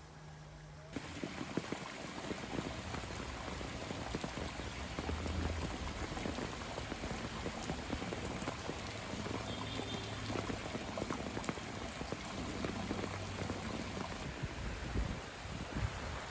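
Steady rain falling, its even hiss cutting in abruptly about a second in.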